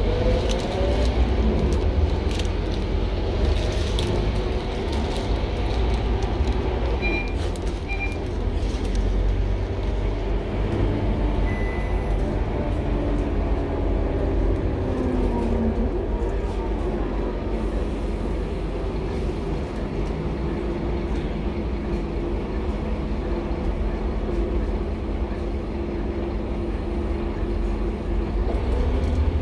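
A Scania K230UB bus heard from inside the cabin while under way: a steady low engine rumble, with the engine and transmission pitch rising near the start and falling away around halfway, then holding steady. A few rattles sound, and there are two short high beeps about seven seconds in.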